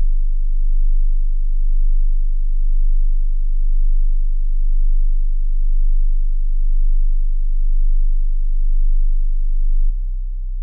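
Hearing-test sine tone at a very low pitch, held steady and pulsing gently in loudness about once a second. Near the end it switches with a click to another low test tone.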